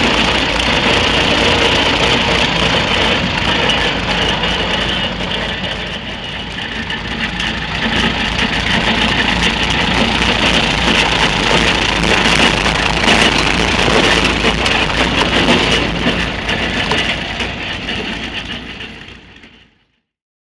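Antique tractor engine running at a steady idle, fading out to silence near the end.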